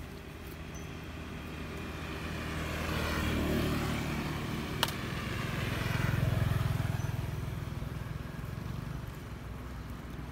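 A motor vehicle's engine passing by, swelling over the first few seconds and fading toward the end, with one sharp click about halfway through.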